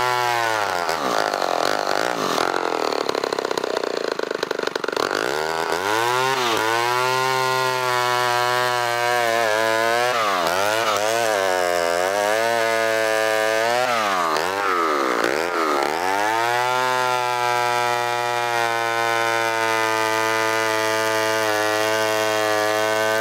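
1964 Homelite Super XL 58cc two-stroke chainsaw with a straight-stack exhaust, bucking a log. The engine pitch sags several times as the chain bites into the wood and climbs back each time, and between cuts it holds steady at high revs.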